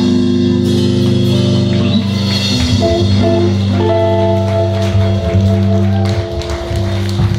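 Live electric band playing without vocals: electric guitars and bass holding long ringing chords over drums and cymbals, drawing out the close of the song, with a final hit near the end.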